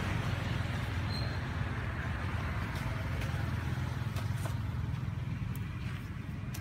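Steady low outdoor rumble, with a few faint clicks in the second half.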